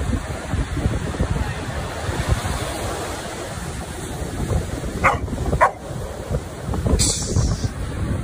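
A dog gives two short barks about five seconds in, over the steady rush of surf breaking on a beach.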